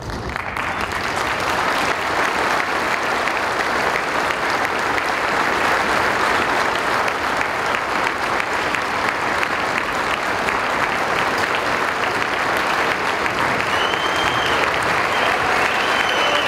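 Audience applauding, swelling in over the first couple of seconds and then holding steady.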